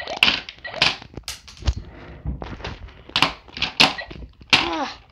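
Shooting sounds in a kids' toy-gun battle: about six short, sharp bursts spread over a few seconds, with a dull thud a little under two seconds in.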